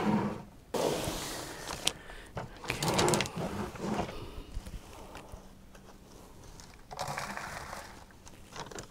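Handling noise: a plastic bag of potting mix rustling as it is opened, then handfuls of the loose mix scraped and dropped into a plastic bucket, in irregular bursts with a few sharp clicks.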